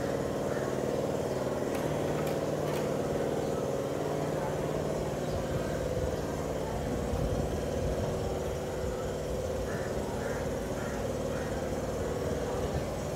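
Steady drone of an engine or motor running at a constant speed, with faint voices in the background and a couple of brief clicks about two seconds in.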